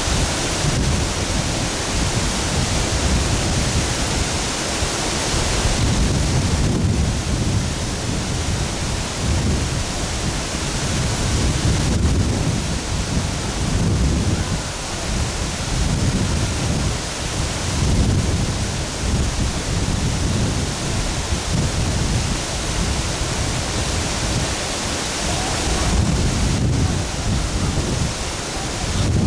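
Waterfall rushing in a steady, loud wash of noise, with irregular low rumbling surges of wind buffeting the microphone.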